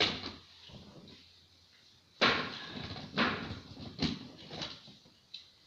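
Plastic Nerf blasters being handled, giving a series of knocks and clacks, the loudest about two seconds in.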